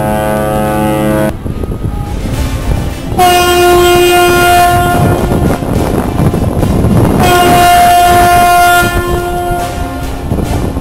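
Ships' horns sounding in a departure salute. A deep horn blast cuts off about a second in, then a higher-pitched horn gives two long steady blasts of about two seconds each. A loud rushing noise fills the gap between them.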